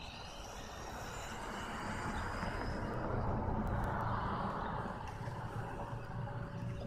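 A car passing on the street, its broad tyre and engine noise swelling to a peak about halfway through and then fading.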